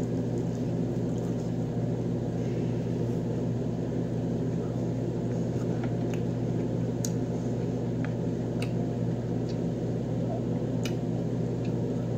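Steady low hum of a running machine or appliance, with faint scattered clicks from eating and chewing.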